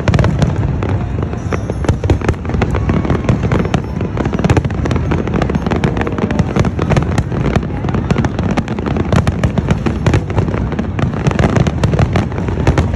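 Fireworks display going off in a rapid, continuous barrage of bangs, many a second, with a heavy low rumble underneath.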